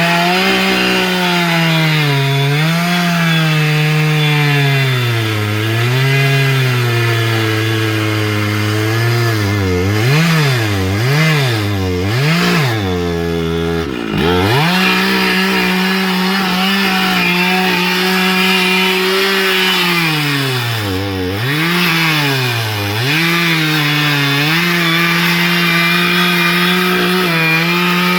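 Chainsaw cutting wood, its engine pitch repeatedly sagging as it bogs under load and picking back up when the load eases. There is a run of quick dips in the middle and a sharp drop about halfway through, with steady high revs for much of the later part.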